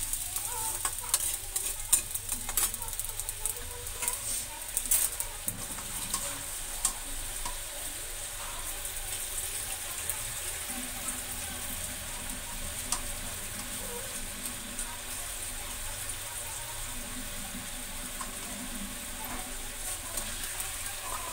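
Cubed potatoes sizzling in a metal kadhai over a gas flame, with a steady hiss, while a metal spatula scrapes and clinks against the pan as they are stirred. The clinks come thick in the first several seconds, then thin out.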